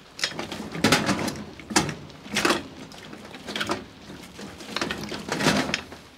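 A box of small salvaged mower parts (fuel caps, pull cords and the like) being rummaged through by hand: irregular clattering and rattling of plastic and metal pieces, half a dozen bursts.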